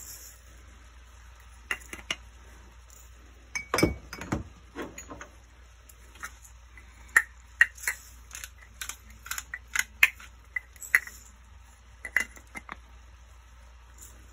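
Diced chicken sizzling in an oiled frying pan, with scattered sharp pops and clicks throughout and a dull knock about four seconds in.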